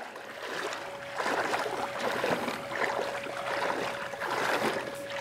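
Shallow seawater splashing and sloshing in irregular surges as legs wade through it, with a thin steady tone underneath.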